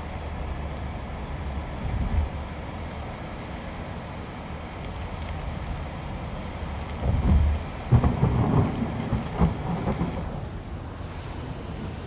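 Hurricane wind and heavy rain heard from inside a vehicle: a steady rush with low rumbling gusts buffeting the microphone, the strongest cluster of gusts about seven to nine seconds in.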